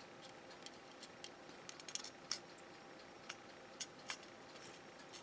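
Faint, scattered light clicks and ticks of small parts being handled: a thin glass LCD panel and its rubber connector strip being worked against a circuit board by hand.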